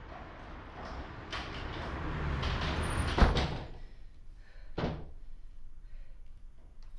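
A rising rush of noise ending in a door slamming shut about three seconds in, followed by a second, softer thud nearly two seconds later.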